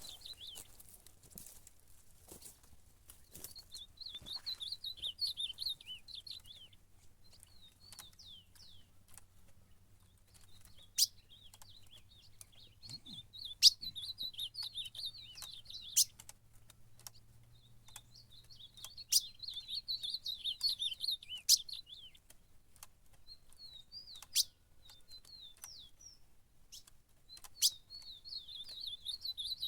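Ultramarine grosbeak (azulão) singing in repeated bursts of fast, rich warbling, agitated territorial song as it confronts a rival. Several sharp, loud clicks come between the song bursts.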